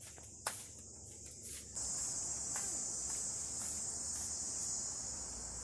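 Insects chirring in a steady, high-pitched drone that grows louder about two seconds in, with a single sharp click about half a second in.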